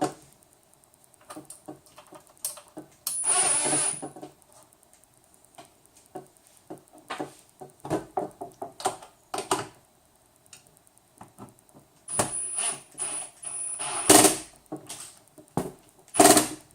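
Small power screwdriver driving a screw in short runs, with a high whine: about a second near the start and a longer, stop-start run of a couple of seconds near the end. Scattered clicks and taps of parts being handled lie between them.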